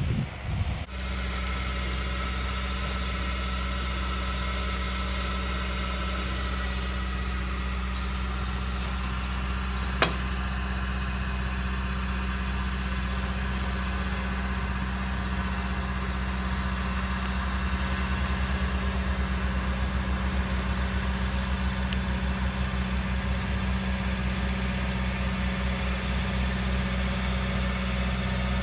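Farm tractor's diesel engine idling steadily, with a single sharp click about ten seconds in.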